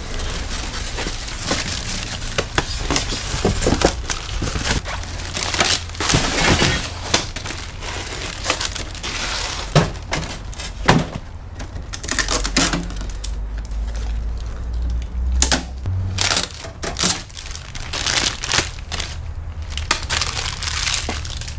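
Cardboard and plastic packaging being handled as a window air conditioner is unpacked: the box dragged off, plastic wrap crinkling and tape tearing, with scattered knocks and scrapes.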